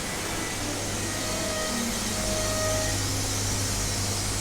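CNC milling machine for cutting acetate eyewear fronts running steadily: a constant low hum under an even hiss.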